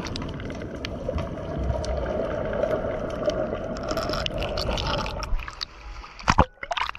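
Sea water washing and gurgling, with many small scattered clicks and a sharp knock about six seconds in.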